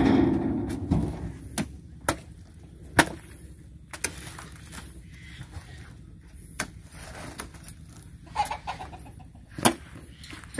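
Oil palm fruit bunches speared with a spiked pole and tossed into the steel bed of a dump truck: a loud clatter fading over the first second, then sharp, irregular knocks every second or two.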